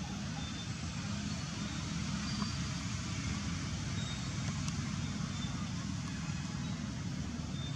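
Steady outdoor street background: a constant low rumble of road traffic under an even hiss, with faint short high chirps here and there.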